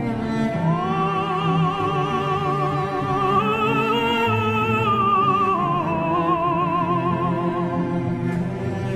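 Classical background music: one long held high note with vibrato over low bowed strings. The note steps up a little partway through and settles lower near the end.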